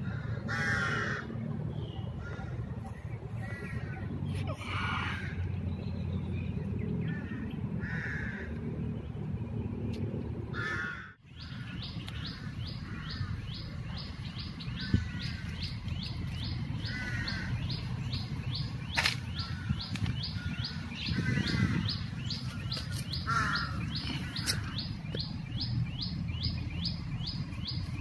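Crows cawing now and then, with smaller birds chirping. From about halfway a fast, even run of high chirps, about three a second, joins in, over a steady low rumble.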